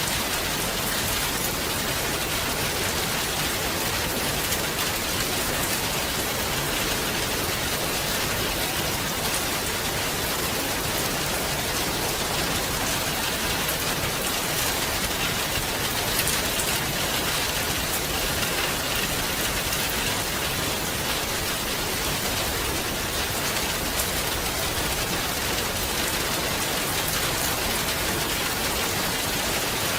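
Steady rain falling, an even hiss of many drops with faint individual drop ticks.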